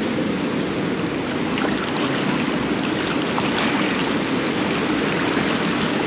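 Seawater washing and lapping around barnacle-covered pier pilings: a steady wash of water noise with a few faint scattered ticks.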